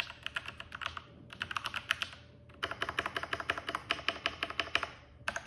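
Typing on a Keychron K4 mechanical keyboard with Gateron G Pro Brown tactile switches: fast runs of key clicks in several bursts with short pauses between them.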